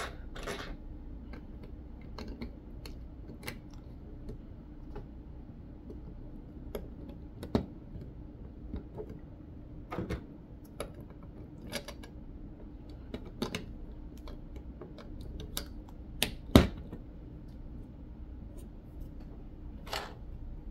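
Plastic Lego bricks clicking and tapping as they are pressed on and fitted to a model roof: irregular sharp clicks, the loudest about three quarters of the way through, over a faint steady hum.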